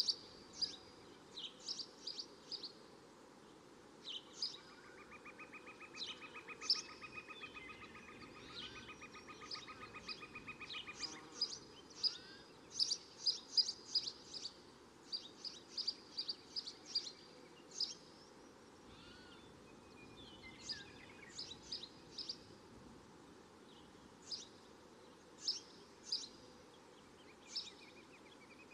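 Small birds chirping: many short, high calls in quick runs, the loudest sounds, over a steady outdoor background hiss. From about four to eleven seconds in, a rapidly pulsing buzz joins.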